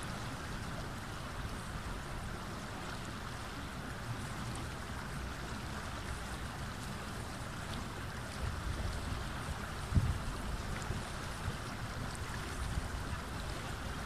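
Shallow river flowing steadily over and around rocks, a constant rushing of water. In the second half, low wind buffeting on the microphone joins in, with one brief bump about ten seconds in.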